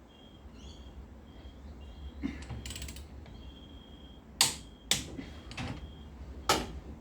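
Heavy electrical cable and lug hardware being worked onto switchboard terminals: faint creaking and fiddling, then four sharp metallic clicks and knocks in the second half, the loudest about four and a half seconds in. A faint high thin tone comes and goes.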